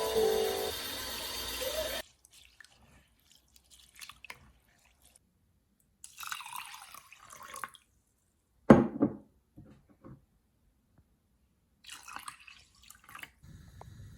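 Water splashing and dripping in short bursts, with one loud thump about halfway through.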